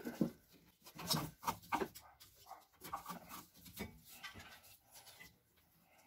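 Faint, irregular clicks and scrapes as a bungee cord's hooks are worked around a brake caliper and the coil spring of the front suspension.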